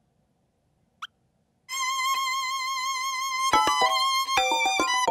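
A brief high chirp, then a violin plays one long bowed note with vibrato. About three and a half seconds in, a quick run of toy xylophone notes comes in over it.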